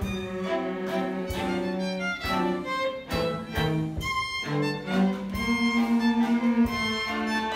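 A small string ensemble of violins and two cellos playing a waltz, with held bowed notes over a cello line. About two-thirds of the way through, a quickly repeated note is the loudest part.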